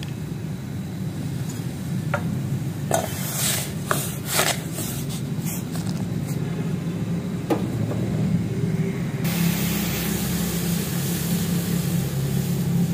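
Milk tea heating in a steel saucepan over a gas burner. A few sharp pops and crackles come from about two to five seconds in, and a steady hiss sets in at about nine seconds as the milk foams up toward the boil. A steady low hum runs underneath.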